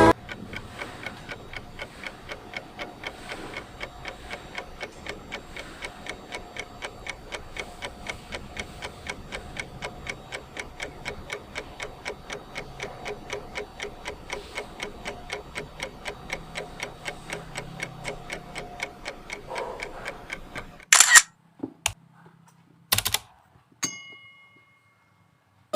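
Steady, rapid ticking, about four ticks a second. Near the end it gives way to a few loud sharp clicks and a short fading tone.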